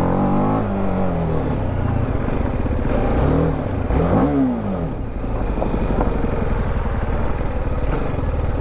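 TVS Apache RR310's single-cylinder engine on a slow ride over a dirt track: the revs fall near the start, rise and drop quickly about four seconds in, then settle into steady low running.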